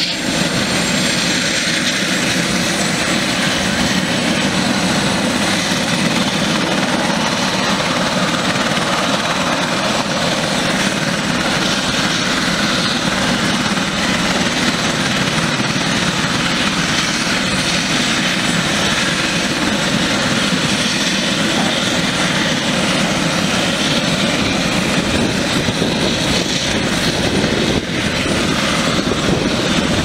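Eurocopter EC130 B4 helicopter running on the ground after start-up, its Turbomeca Arriel turboshaft and rotor giving a steady, unchanging rush with a thin high whine over it.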